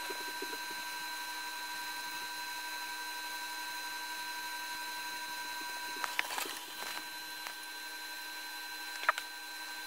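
Two laptops running a Cinebench CPU render test: a steady hum with several high, thin whine tones, typical of cooling fans and electronics under full load. A few clicks come about six seconds in, and a sharp click comes near the end.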